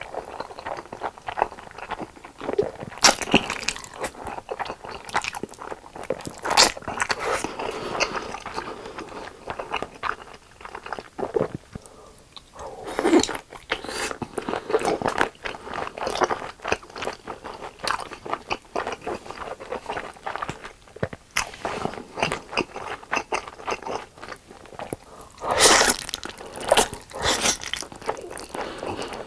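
Close-miked eating of Samyang carbonara fire noodles and kielbasa sausage: steady, irregular biting and chewing with many wet mouth clicks and short crunches. Louder bites come several times, with a bunch of them near the end.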